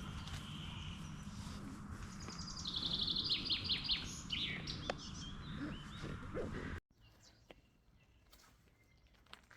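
Wild birds singing, with a fast trill of repeated high notes in the middle, over a low rumble of wind. It cuts off suddenly about seven seconds in to a much quieter stretch with a few faint ticks.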